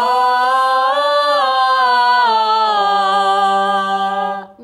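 Woman and two men singing a sustained 'ah' together as a vocal scales warm-up. The held note steps up in pitch, holds, steps back down, and stops just before the end.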